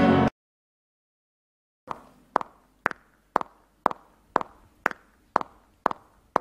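Music cuts off abruptly just after the start. About a second and a half of silence follows, then sharp, evenly spaced clicks begin, about two a second, keeping a steady beat.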